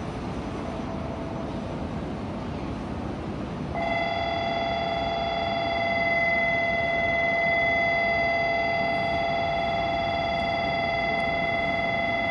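Station platform departure signal, a steady electric bell-like ringing with a fast flutter, starting about four seconds in over the station's background noise and holding on. It signals that the Shinkansen is about to leave.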